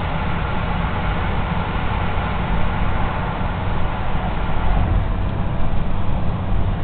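Steady road noise of a car driving at motorway speed, heard from inside the cabin: a constant low rumble of engine and tyres.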